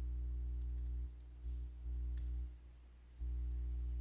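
A steady low electrical hum, which drops out briefly about a second in and again for about half a second near the three-second mark. Over it come a few faint computer keyboard key clicks as a line of code is typed.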